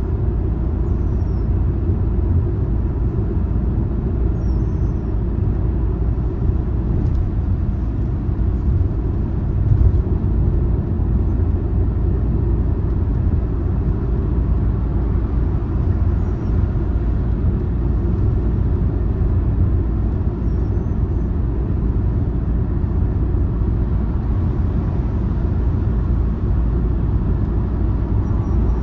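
Car driving along a road: steady low rumble of the engine and tyres on the road surface.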